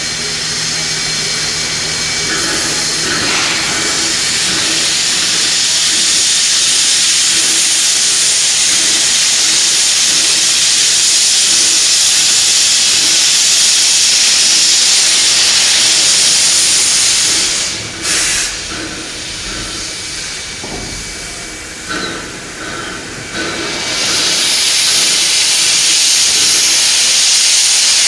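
Steam locomotive venting steam in a loud, steady hiss, which eases off briefly twice in the later part.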